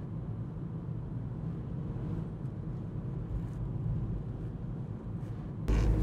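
Steady low rumble of a car driving, heard from inside the cabin. It jumps louder suddenly near the end.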